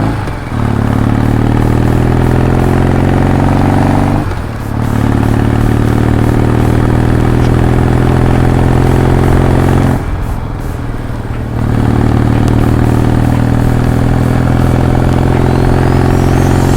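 A vehicle's engine running steadily under way, with the level dropping briefly about half a second in, again around four seconds, and for about a second and a half near ten seconds before it picks up again.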